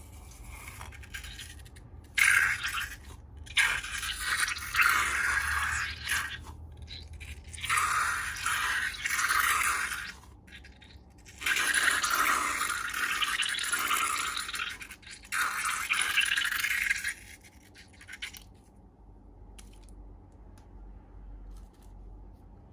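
Slime being worked by hand, in a series of crackly, scraping bursts, each lasting up to a few seconds, that stop a little after halfway through.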